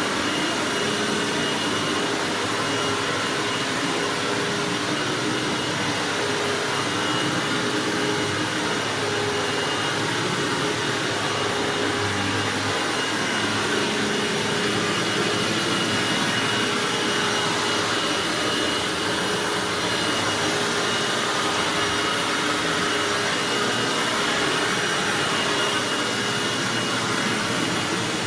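Hoover WindTunnel bagged self-propelled upright vacuum cleaner running steadily while vacuuming carpet, a dense motor-and-airflow noise with a steady high whine.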